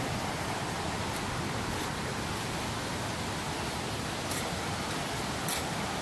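Steady, even rush of a waterfall, with a couple of faint clicks in the second half.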